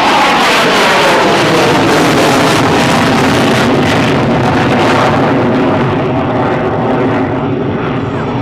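Single-engine F-16 fighter jet's roar as it flies past, its pitch sliding down as it pulls away. The sound grows duller and softer after about five seconds.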